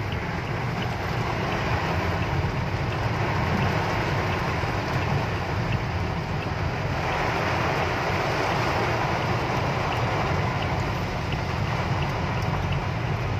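Heavy rain on a moving car, heard from inside the cabin: a steady rush of rain on the glass and body mixed with tyre noise on a flooded road, a little louder from about seven seconds in.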